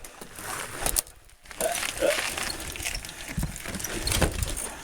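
Mountain bike rolling over rock, with scattered clicks and rattles and two dull thumps in the second half.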